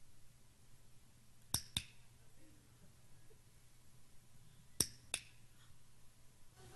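A handheld training clicker clicked twice, about three seconds apart. Each click is a sharp double snap as it is pressed and released, marking a correct behaviour.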